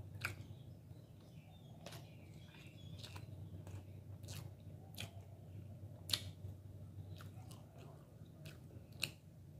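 Faint close-miked mouth sounds of eating rice and chicken curry by hand: soft wet chewing and lip-smacking clicks scattered irregularly, two sharper ones about six and nine seconds in, over a steady low hum.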